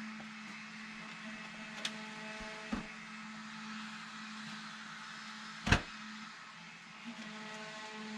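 A steady mechanical hum with a light hiss, broken by a few short knocks, the loudest about halfway through.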